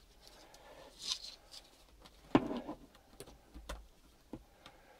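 Handling noise from a plastic laptop-style battery charger brick being picked up and moved on the workbench: a few scattered clicks and knocks, the loudest a sharp clunk a little over two seconds in, with a brief rustle before it.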